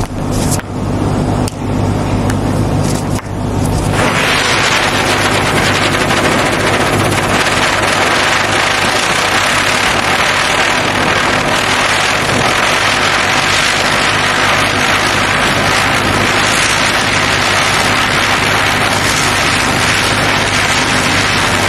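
Ground spinner firework (chakri): a few sharp clicks, then about four seconds in a loud, steady fizzing hiss as it ignites, spins and sprays sparks.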